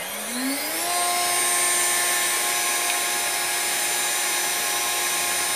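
CNC router's new VFD-driven spindle spinning up, its whine rising in pitch over about the first second, then running steadily at about 20,000 RPM with a high, even whine and hiss.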